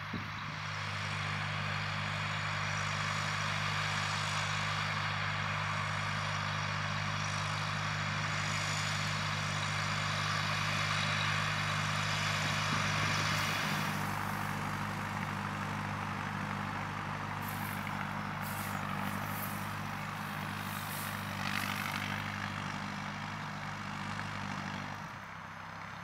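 Fendt 415 Vario TMS tractor's four-cylinder diesel engine running steadily under load while pulling a reversible plough. Brief high-pitched crackling joins in from about 17 to 22 seconds in.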